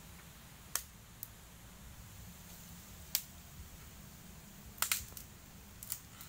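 Dry sticks and twigs snapping as firewood is broken off and pulled from brush: a few sharp cracks spread out, with a close cluster about five seconds in, over a faint low rumble.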